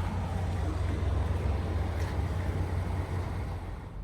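Chevrolet car driving, a steady low drone of engine and road noise with no one speaking, easing off slightly near the end.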